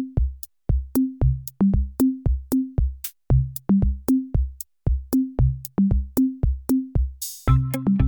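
Background music: a drum-machine beat of kick and tom hits at about three a second, with a cymbal swell near the end as synthesizer and bass chords come in.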